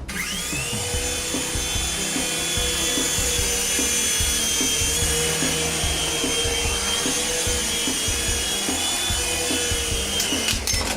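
F101 mini RC helicopter's small electric motors spinning up with a quickly rising whine, then running at a steady high whine for about ten seconds before cutting off shortly before the end.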